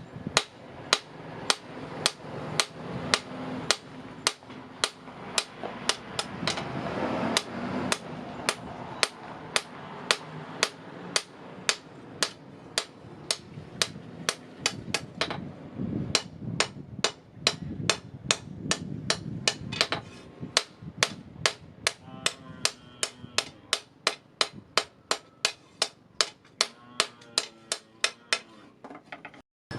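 Blacksmith's hammer striking hot iron on an anvil while forging a sword blade: a steady run of ringing blows, about two to three a second.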